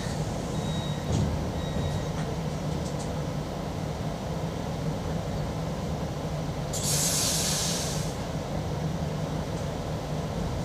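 Steady electrical hum inside a standing ED78 electric multiple unit, with a faint high whine in the first two seconds. About seven seconds in, a loud hiss of compressed air lasts about a second.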